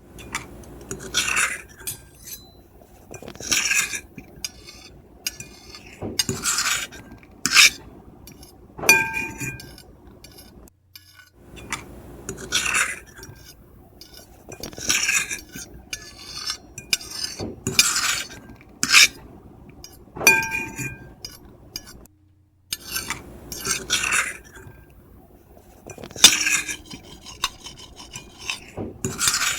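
Metal fork and knife scratching across a plate in repeated scraping strokes, about one every one to two seconds, with a few sharper clinks that leave the plate ringing briefly.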